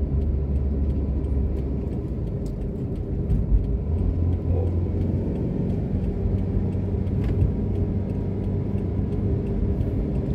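Car driving along a road: a steady low rumble of engine and tyre noise.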